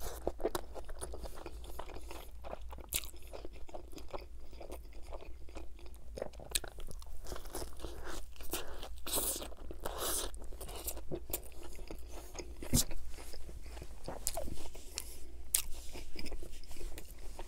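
Close-miked chewing and biting into a Wendy's bacon burger: irregular crisp crunches mixed with wet mouth sounds, a few louder bites around the middle.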